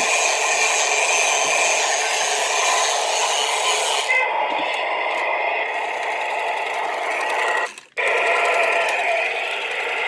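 Toy State Heavy Duty Worker toy bulldozer playing an electronic machine-noise sound effect through its small, tinny speaker. It cuts out sharply about eight seconds in, then starts again.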